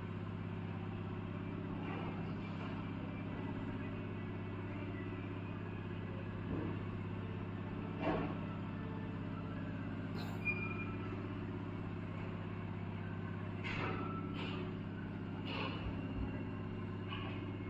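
Peristaltic dosing pumps in an industrial dishwasher running: a steady electric hum. A few short clicks and knocks come through it, the loudest about eight and ten seconds in.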